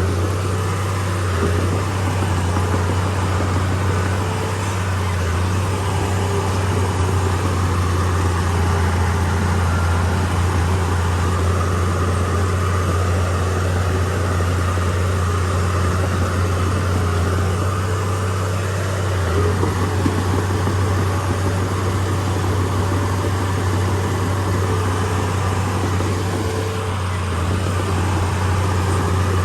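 Komatsu D31P bulldozer's diesel engine running steadily under work, a deep continuous hum with small dips in loudness a few times.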